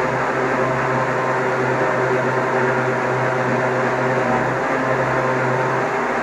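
Electric countertop blender's motor running steadily at constant speed with a low hum, blending green mango juice with sugar to dissolve it.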